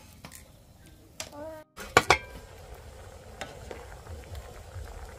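Porridge boiling in a pot over a wood fire and being stirred with a spatula. About two seconds in there are two sharp knocks of the spatula against the pot, then a steady bubbling hiss with light scraping and small clicks.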